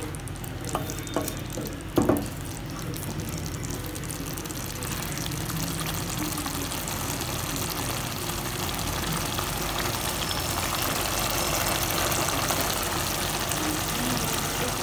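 Thick tomato curry sizzling and bubbling in a nonstick kadai on the stove, a steady hiss that grows slightly louder. A few knocks of a wooden spatula against the pan near the start.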